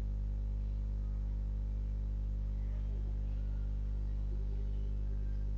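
Steady electrical mains hum: a constant low buzz with a stack of overtones, unchanging throughout.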